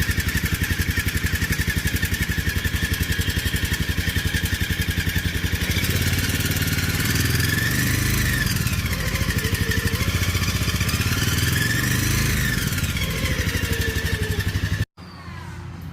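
Polaris Ranger 500's single-cylinder engine running with a high-pitched whine that changes with rpm; the whine climbs and falls back as the engine is revved twice. The sound cuts off suddenly near the end.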